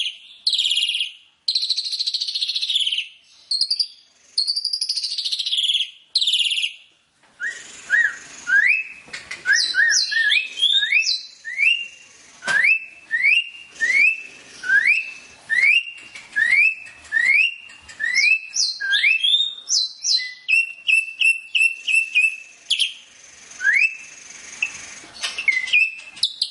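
White-rumped shama (murai hutan) singing. First come several long, arching whistled phrases. From about seven seconds in, a run of short rising whistled notes repeats roughly every half second, with quick chattering notes over them.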